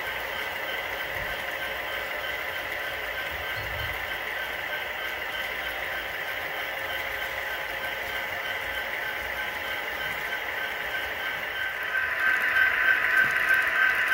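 HO scale model freight cars rolling along sectional track: a steady rolling rumble with a faint, fast, even clicking, growing louder about twelve seconds in.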